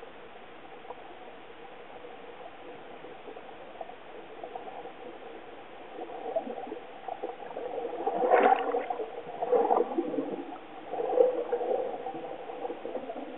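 Muffled underwater sound picked up by a submerged camera, turning into bursts of bubbling and gurgling from about six seconds in, loudest in the last third: a snorkeler's air bubbles and water stirred up close to the camera.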